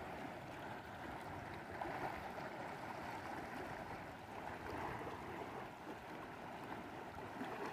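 Rushing water of a swollen river, a steady wash of noise that swells a little now and then, with the light splashing of a diver moving through the current.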